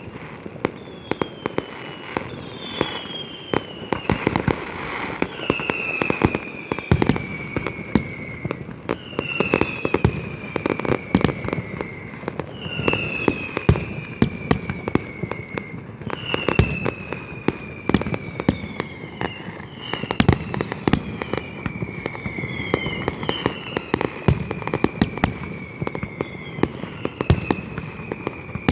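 Fireworks display: a dense run of sharp bangs and crackles, with a falling whistle about every three seconds from whistling fireworks.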